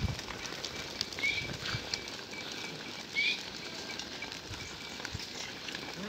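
A herd of goats walking on a paved track, many hooves pattering and clicking without a break, with two short high chirps about a second and three seconds in.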